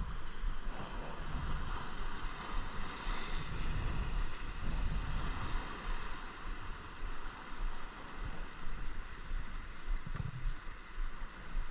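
Steady wash of ocean surf with wind rumbling irregularly on the microphone.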